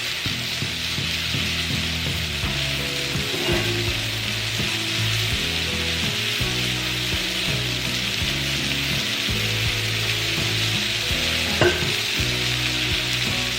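Cornstarch-coated beef strips searing in oil in a hot skillet, with a steady sizzle. Two sharp clicks of a utensil against the pan come near the start and near the end.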